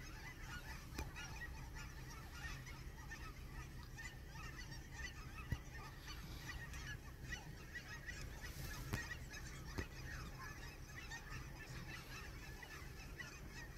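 A large flock of Canada geese calling, with many faint, overlapping honks throughout.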